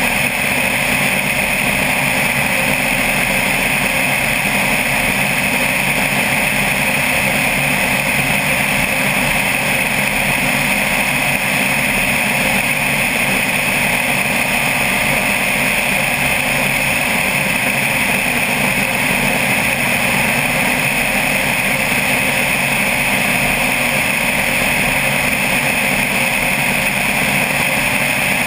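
Single-engine propeller airplane in level cruise, heard from outside the fuselage close to the nose. The engine and propeller hold a steady, unchanging drone.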